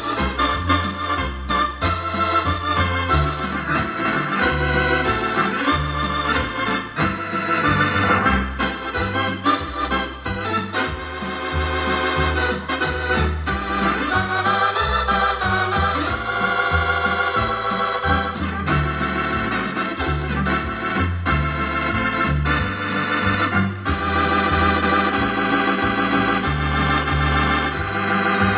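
Wersi electronic home organ played with both hands: a full organ voice over a moving bass line, with a steady rhythm beat underneath.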